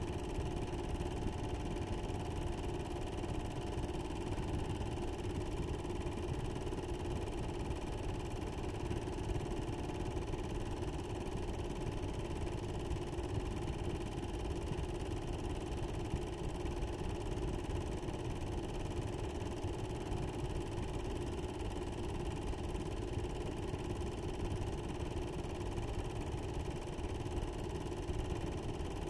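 Steady mechanical running noise with a constant hum, unchanging throughout.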